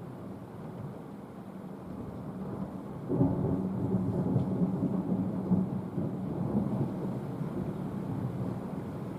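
Thunder: a sudden clap about three seconds in, then rumbling that slowly fades.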